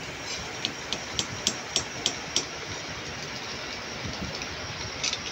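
Small metal lathe running steadily, with a quick run of about seven sharp metallic clicks in the first half (about four a second) and one more click near the end.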